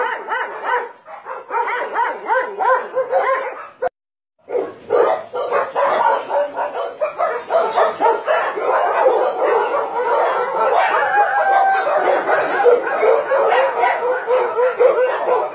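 Many dogs barking and yelping at once, a dense chorus of overlapping barks. It breaks off completely for about half a second about four seconds in.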